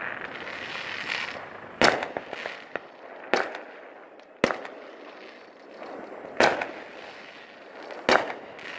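Aerial fireworks bursting: five sharp bangs about one and a half to two seconds apart, with fainter crackling and hiss between them.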